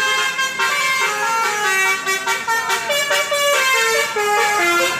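A bus's basuri 'telolet' musical horn playing a quick tune of stepped notes, several tones sounding together and stepping down to lower notes near the end.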